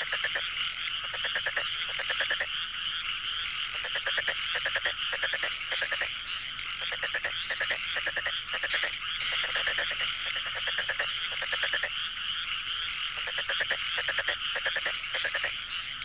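A dense frog chorus at a pond: steady trilling croaks, with short, high, rising calls repeating about twice a second over them.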